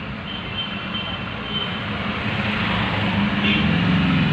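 Street traffic: the engine of a vehicle rumbling steadily and growing louder toward the end. A thin high whine sounds over it during the first second and a half.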